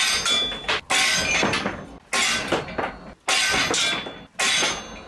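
Air-over-hydraulic bottle jack on a shop press being pumped in short bursts, about one a second: a sudden hissing, chattering rush each time, dying away quickly. The jack is building pressure on a hardened steel test piece to snap it.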